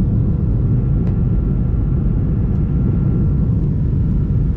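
Airliner cabin noise in flight: a steady low rumble, with a faint steady high tone above it.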